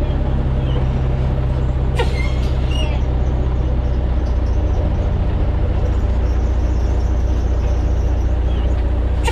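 Volvo N12 truck's diesel engine running with a steady low rumble from its loud twin exhausts; the note drops a little about four seconds in, with a brief click at about two seconds.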